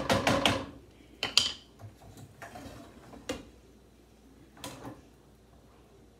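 Cookware clattering on a gas stovetop: short knocks and scrapes of pans and utensils, a quick cluster at the start and another about a second and a half in, then a few single clicks spaced a second or so apart.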